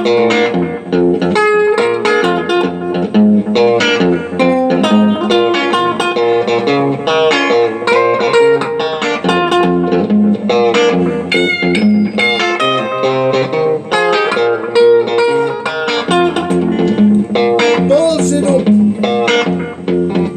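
Electric guitar played over a looper: a repeating layered guitar loop of low notes and chords, with single notes plucked on top. There is a string bend near the end.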